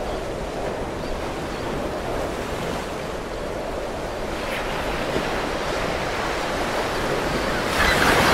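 Sea surf washing in on a beach: a steady rush of waves, with a louder surge near the end.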